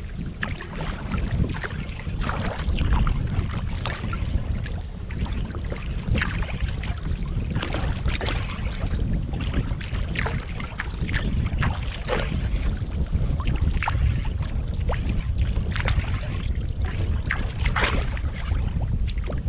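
Wooden Greenland kayak paddle blades dipping and splashing in the water, a splash every second or two as the strokes alternate sides, over a constant low rumble of wind on the microphone.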